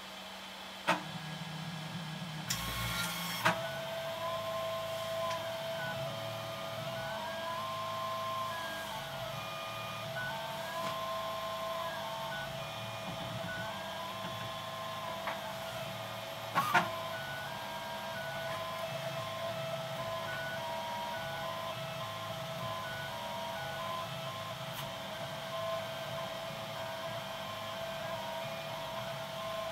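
Homemade briefcase-mounted 3D printer running, its stepper motors whining: a steady whine with pitches that glide up and down as the axes move, then short stepped tones of printing moves. A click about a second in, a brief burst of noise around three seconds, and a sharp knock near seventeen seconds stand out.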